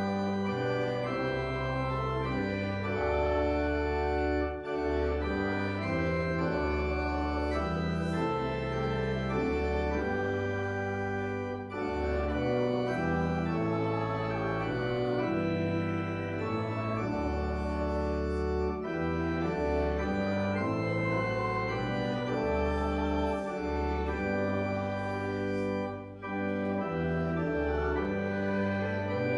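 Church organ playing a hymn in held chords over a moving pedal bass, with short breaks between phrases about every seven seconds.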